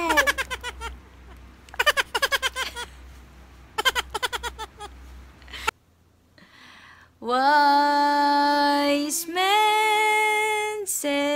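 Short runs of rapid, pulsing laughter in the first few seconds. After a brief near-silent gap, a woman's voice holds long, steady sung notes that step from one pitch to the next.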